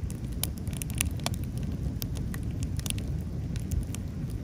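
Wood campfire crackling, with irregular sharp pops and snaps over a low steady rumble.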